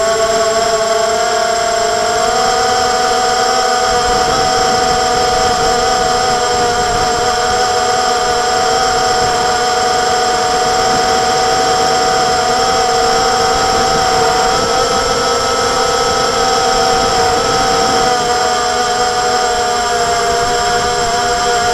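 Hexacopter motors and propellers in flight, a steady multi-tone whine with small shifts in pitch a couple of seconds in and again near the end.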